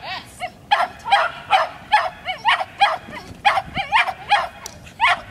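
A dog barking repeatedly in quick, even succession, about two to three barks a second.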